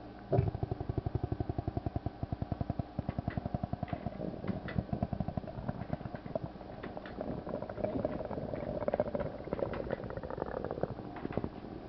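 Stomach rumbling: a loud, rapid fluttering gurgle starts about half a second in, then runs on as a longer gurgle with a drawn-out tone and ends with a last burst near the end. The uploader puts these stomach sounds down to a stomach ulcer.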